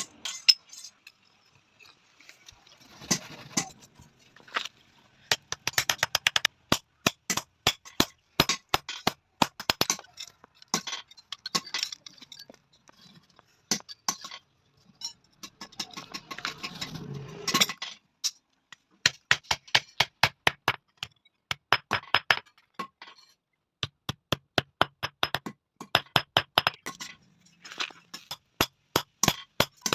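Blacksmith's hammer striking steel on an anvil in quick runs of blows with pauses between, each strike a sharp metallic clink.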